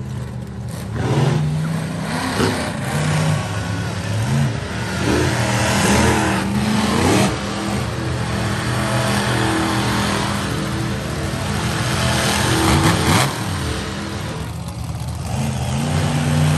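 Monster truck engines running loud and revving hard, their pitch climbing and dropping again and again as the trucks accelerate and jump.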